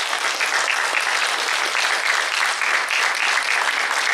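Audience applauding steadily: dense, continuous clapping from a hall full of people.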